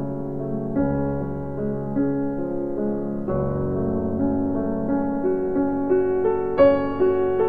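Slow piano music: sustained chords that change every couple of seconds, with notes stepping upward in the second half.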